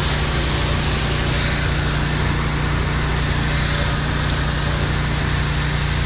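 Water spraying from a fire hose nozzle onto the hot metal engine panel of a burned skid steer, a steady hiss, over the steady low drone of an engine running.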